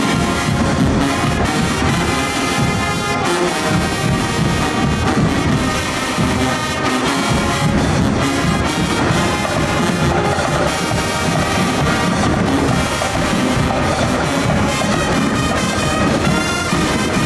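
High school marching band playing loud and steady, brass section (trumpets, trombones) carrying the tune over marching percussion.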